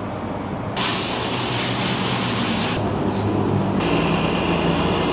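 Yamaha MT-09's CP3 three-cylinder engine running through an Akrapovic exhaust. A loud hiss covers it from about one second in to about three seconds in.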